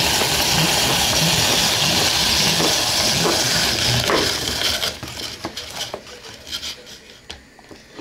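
Grated carrot frying in a pan: a loud, steady sizzle with the knock and scrape of stirring. About five seconds in the sizzle drops away, leaving scattered clicks and scrapes.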